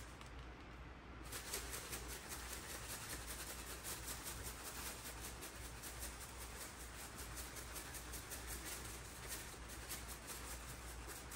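Salt-and-pepper rub rattling in a shaker jar, shaken in quick, repeated strokes; the shaking starts about a second in.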